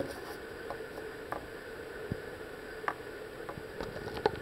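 Light, irregular ticks and taps from a plastic-bodied mechanical pencil being handled and tried on paper, a few per second, over a steady low electrical hum.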